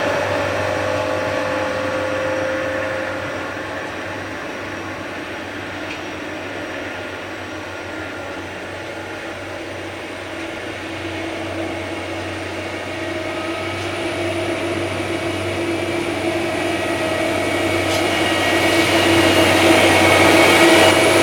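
Multiple tie tamper running on the track, a steady machine sound with several held whining tones over a low hum. It eases off early on and then grows steadily louder over the last several seconds.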